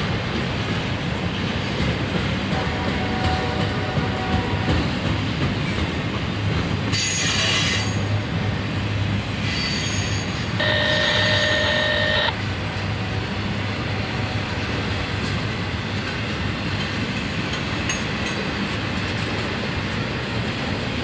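Autorack freight cars rolling past with a steady rumble of wheels on rail. High-pitched wheel squeals cut in: a brief one about seven seconds in and a louder, longer one from about ten and a half to twelve seconds.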